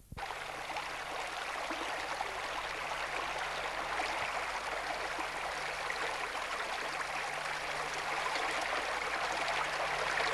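A stream running over rocks: a steady rushing of water, with a faint low hum underneath.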